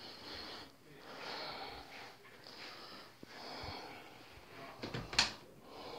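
A person's breathing close to the microphone, a string of hoarse breaths about a second apart. A sharp handling knock on the phone comes about five seconds in.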